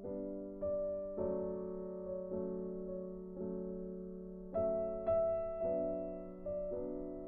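Slow background piano music: soft notes and chords struck about once or twice a second, each ringing and fading.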